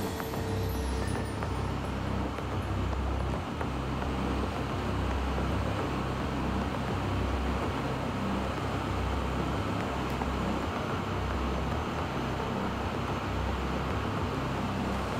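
Steady industrial machine noise: a low, uneven rumble with a hiss above it, without clear tones or knocks.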